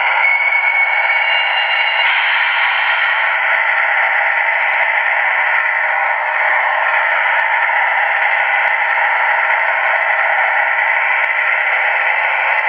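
Model AC4400 diesel locomotive's DCC sound decoder playing a running diesel engine through its small built-in speaker: steady and thin, with no bass. A couple of short steady tones sound in the first two seconds.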